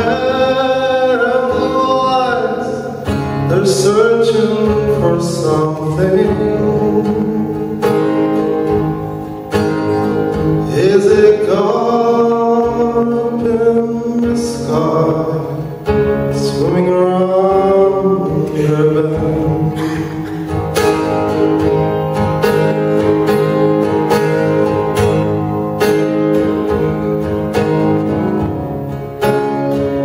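Live solo folk performance: a man singing to his own strummed acoustic guitar.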